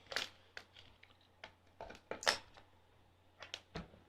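Scattered light clicks and taps from small plastic parts of the ST-10B test tweezer and its cable being handled. There are about nine of them, irregularly spaced, and the loudest comes a little past two seconds in.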